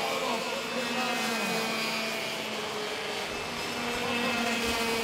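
Racing go-karts' two-stroke engines running on track, a steady buzzing drone, with a few notes dropping in pitch in the first second or two.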